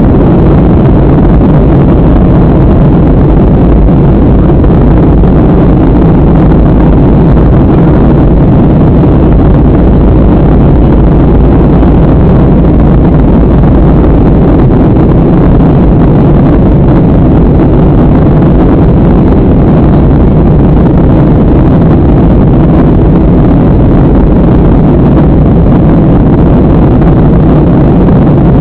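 Cabin noise inside a Boeing 737 in flight: jet engines and rushing air as a loud, unchanging low rumble.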